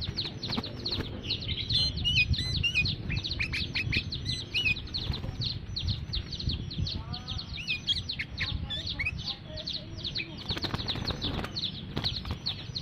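Sooty-headed bulbul (kutilang) calling in an excited, lively state: a fast, continuous run of short high falling chirps, several a second, with other twittering notes mixed in.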